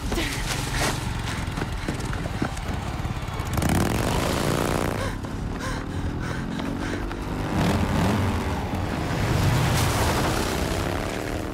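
Motorcycle-and-sidecar engine running, its pitch sweeping up and down twice, about four and eight seconds in. A few sharp knocks come in the first couple of seconds.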